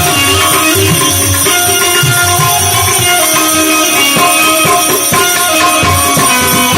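Instrumental passage of a devotional bhajan: a melody line of held notes over a steady hand-drum rhythm, with no singing.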